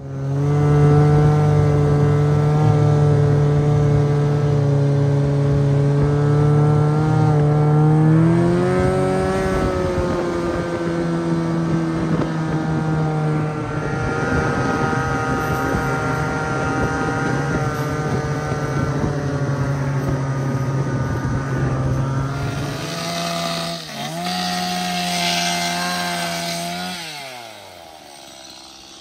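Snowmobile engine running steadily under load while towing a loaded sled. Its pitch rises about eight seconds in, then winds down sharply near the end as the machine slows.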